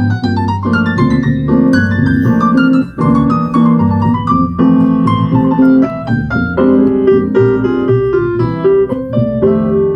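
Jazz piano trio playing an instrumental passage, the piano in the lead with a run of notes over a low accompaniment.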